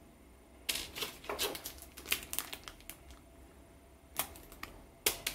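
A small clear plastic zip bag of gold bullet connectors and heat-shrink tubing, with small loose parts, handled on a wooden table: a busy run of crinkles and sharp clicks from about a second in, then two sharper clicks near the end.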